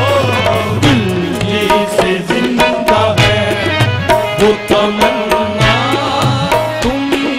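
Qawwali ensemble performing: harmoniums holding steady notes over a brisk tabla rhythm, with sung vocals gliding and wavering above.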